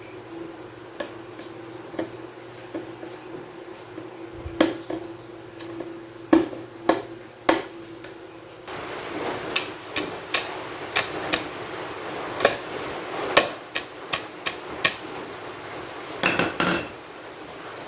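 Kitchen knife used in place of a screwdriver on a cabinet's screws, the metal blade clicking and scraping against the screw heads and knocking on the panel in sharp, irregular taps, with a quick rattle of clicks near the end.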